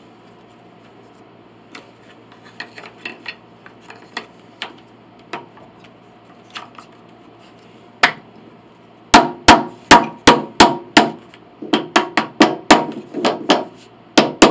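A few light clicks and knocks as wooden pieces are handled and set, then a hammer tapping the fitted wooden pinblock pieces to drive them tight into place. There is one sharp strike about eight seconds in, then a quick run of about fifteen taps, two or three a second, each with a short ring.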